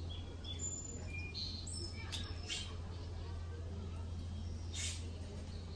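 Small birds chirping: a handful of short high chirps in the first second and a half, then a few sharp clicks about two seconds in and again near the end, over a steady low hum.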